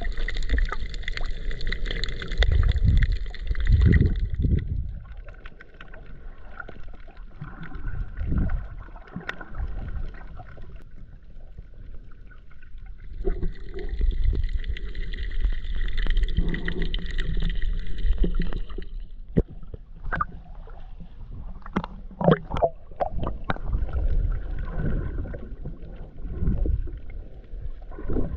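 Water moving around a camera held underwater while snorkelling: a low rumble and sloshing that swells and fades, with scattered sharp clicks. A steady high-pitched whine runs through the first few seconds and returns for several seconds in the middle.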